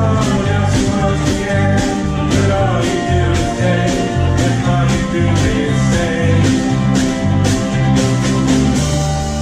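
Live band music: ukuleles strumming over a pulsing bass line, with a woman singing, in a bouncy country style. Near the end the band lands on a held final chord.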